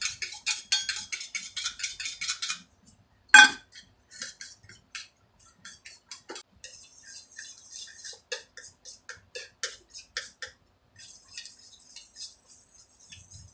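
Metal utensil clinking against a ceramic plate while beating a raw egg with chopped onion and coriander. There are fast, even strokes at about five a second for the first two and a half seconds, then one sharper knock, then slower, irregular clinks.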